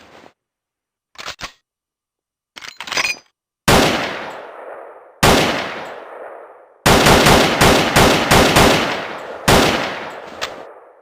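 Tokarev SVT-40 semi-automatic rifle in 7.62×54mmR: a few metallic clicks of the action first, then two single shots, each with a long echoing tail. A quick string of about six shots follows, then one more shot.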